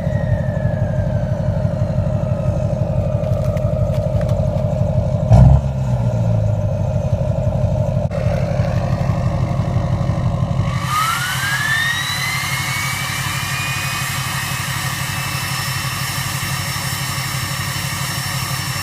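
2009 GMC Sierra's 6.6 L LMM Duramax turbo-diesel running, with a high whine falling away over the first few seconds and one loud thump about five seconds in. Past the halfway point the deep engine sound drops off and a whistle rises steadily in pitch as the truck pulls.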